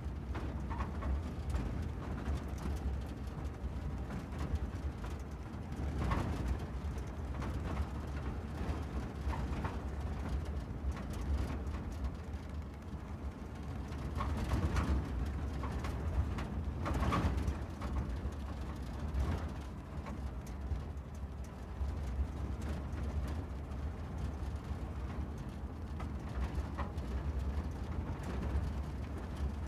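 A car driving along a road: a steady low rumble from the engine and tyres, with a few short knocks.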